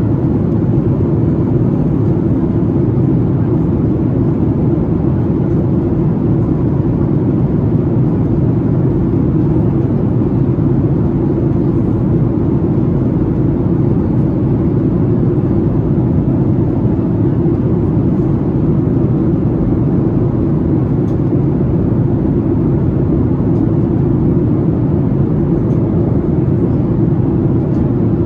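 Steady low rush of jet engine and airflow noise inside the cabin of a Boeing 737-8 MAX in flight, from its CFM LEAP-1B turbofans, even and unchanging throughout.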